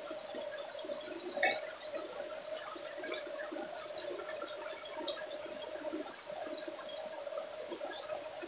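Pork belly with tomatoes and shrimp paste bubbling and sizzling in a pan, a fine steady crackle of frying sauce. A steady hum runs underneath, and there is a short clink about a second and a half in.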